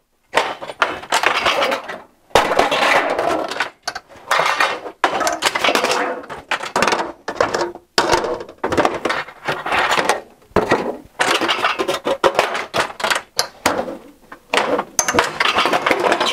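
Aluminum trim coil rattling and clanking as it is handled and bent in a hand-operated sheet-metal bending brake, with clunks from the brake's handle and clamp. It comes in a string of loud bursts with short breaks between them.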